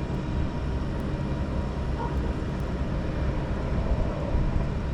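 Steady low rumble and hum, with a faint steady tone over it and no distinct events.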